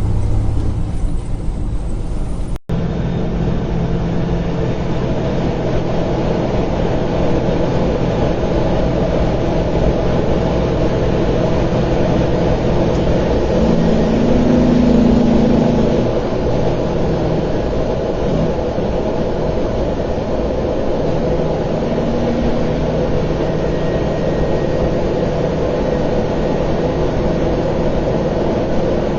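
Steady vehicle engine drone and road noise, recorded by a dashcam. It changes abruptly about two and a half seconds in, where one clip cuts to the next. Midway a louder low steady tone sounds for about two seconds, and a shorter, fainter one comes later.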